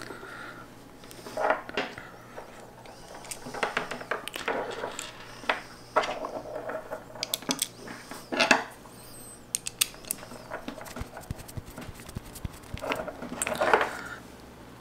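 Irregular small clicks and clinks of plastic and metal parts as a 12-volt cigarette-lighter plug is fitted back together by hand.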